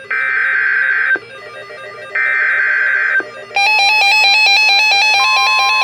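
Two screeching bursts of Emergency Alert System SAME digital data, about a second each with a second's gap between, over faint background music. About three and a half seconds in, loud electronic music with rapid beeping tones starts, joined near the end by a steady beep.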